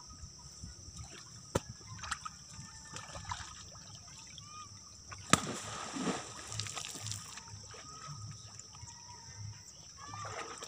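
Shallow muddy ditch water sloshing and splashing softly as people grope by hand along the bottom and banks for fish. A sharp knock a little past halfway is the loudest sound, followed by a brief burst of splashing.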